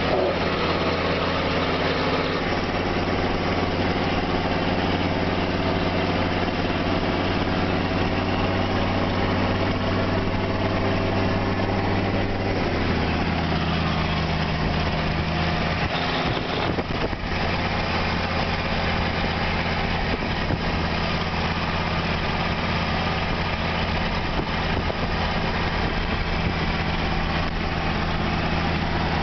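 Engine and road noise of a vehicle driving at steady speed, heard from inside the cab: a continuous low engine hum over tyre and wind noise. Partway through, the engine note drops slightly.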